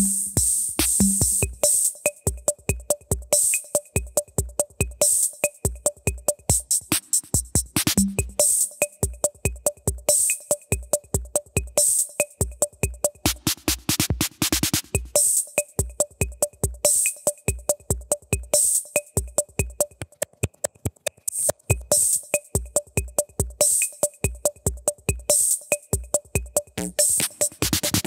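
Drum machine playing a steady electronic beat of low thumps and bright ticks, laid under the picture as background music, with a busier run of strokes about halfway through.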